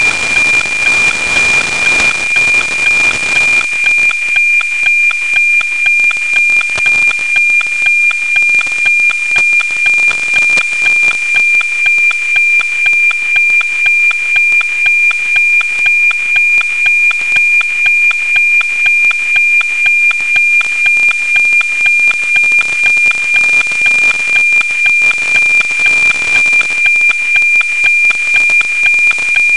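NOAA 19 APT weather-satellite signal, FM-demodulated from a software-defined radio. It is a steady 2400 Hz tone with a rhythmic tick-tock of about two image lines a second. White-noise hiss from the weak, low-elevation pass is heavy for the first few seconds, then thins.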